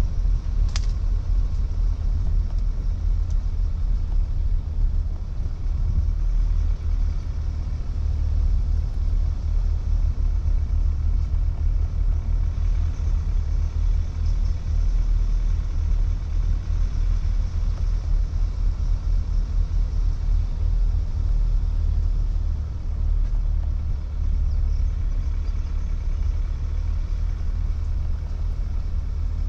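Steady low rumble of a car driving along a country lane: engine and tyre noise with no change in pace. A brief high tick sounds less than a second in.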